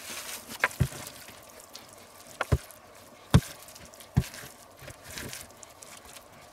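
Bread dumpling filling being pushed by hand into a raw goose's cavity: soft handling and squishing sounds, with several short knocks or taps.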